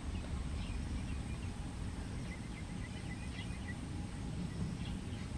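Outdoor pond-side ambience: a steady low rumble, with small birds chirping faintly over it, including a quick run of even chirps about two seconds in.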